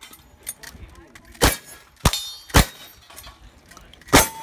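Four gunshots fired at steel targets at an uneven pace, the last followed by a steel plate ringing on one steady tone.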